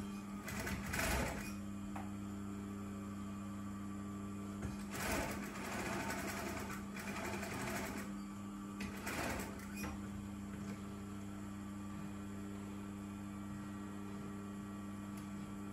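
Brother industrial sewing machine stitching in short runs: one about a second in, a longer one of about three seconds around the middle, and a brief one just after. A steady electric hum runs underneath.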